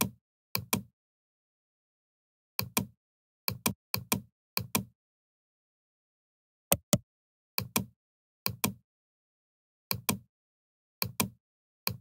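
Computer mouse button clicking: about eleven clicks at uneven intervals, each a quick press-and-release pair of sharp ticks, with dead silence between them.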